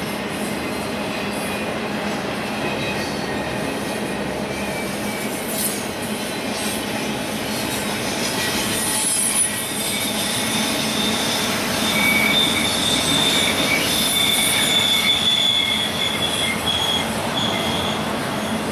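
Double-stack container train's well cars rolling past with a steady rumble of steel wheels on rail. From about ten seconds in, a high-pitched squeal joins in and holds for several seconds before fading near the end.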